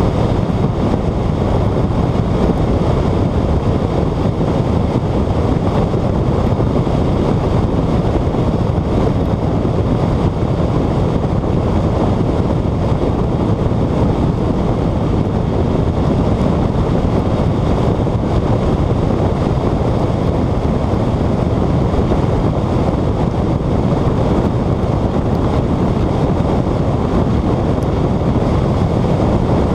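Steady, loud rush of wind noise on the microphone mixed with engine and tyre noise from a Saleen car running at high speed, with no distinct engine note or change in pace.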